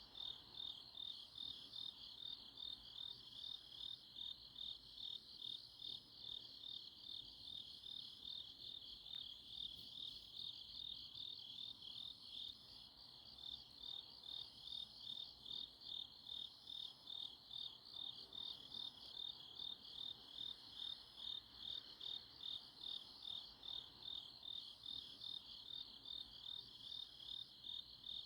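Autumn night chorus of grass insects: a steady, fast-pulsing chirp around 4 kHz, with a fainter, higher call repeating every second or two.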